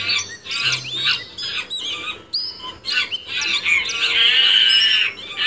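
Chimpanzees calling: a string of short, high squeals that rise and fall, then a longer, steady high call about four seconds in.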